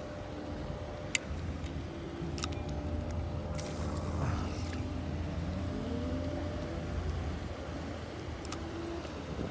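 A motor engine running, its pitch gliding upward about five seconds in, over a steady low hum. A few sharp clicks and a short hiss sound over it.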